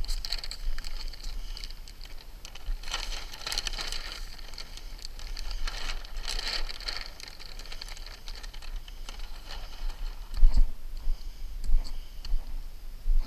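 Paper release liner being peeled off the sticky back of Grace Ice & Water Shield roofing membrane: the stiff paper crackles and rustles, swelling twice a few seconds apart. A single thump comes near the end.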